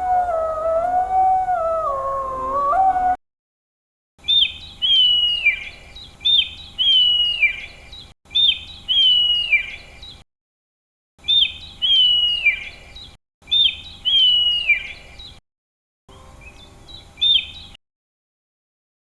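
A canine howling, one wavering drawn-out note, is cut off abruptly about three seconds in. After a gap, a bird calls over and over in short edited clips with silence between them. Each call is a short high note followed by a falling whistle.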